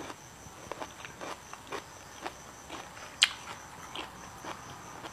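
Close-miked mouth sounds of someone chewing a mouthful of food: soft wet clicks about twice a second, with one sharper click a little after three seconds in.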